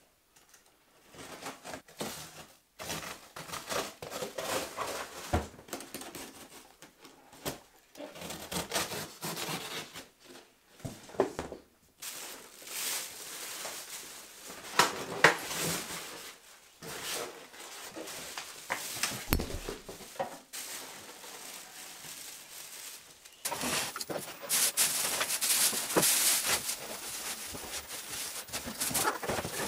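Plastic packing bags crinkling and rustling as packaging is pulled out of a cardboard box, with polystyrene foam and cardboard being handled and occasional knocks. The rustling becomes denser and more continuous near the end.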